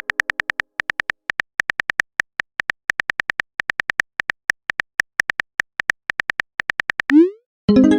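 Simulated phone keyboard typing: a fast, irregular run of sharp taps. About seven seconds in it ends with a short rising swoop, the message-sent sound, and just before the end a chiming tone starts and fades.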